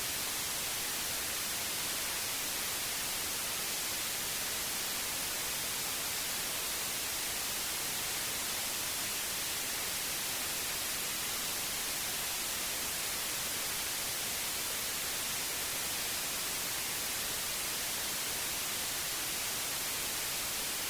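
Steady white noise: an even, unchanging hiss, brightest in the upper frequencies.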